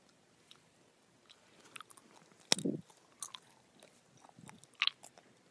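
Very close-miked mouth sounds of chewing a gummy bear: scattered soft, wet clicks and smacks, with one louder thump about two and a half seconds in.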